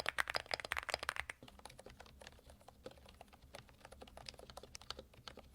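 Rapid typing on computer keyboards, in a quiet-typing comparison. For about the first second and a half the keystrokes are brisk and louder. After that they turn much quieter and fainter.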